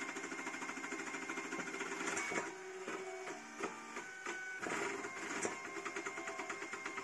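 Home-built CoreXY 3D printer printing PLA at very high speed and acceleration: a fast, dense mechanical buzz from the motors and carbon-fibre gantry. From about two and a half to four and a half seconds in, the buzz gives way to the stepper motors whining in short steady notes that jump from pitch to pitch, before the fast buzz returns.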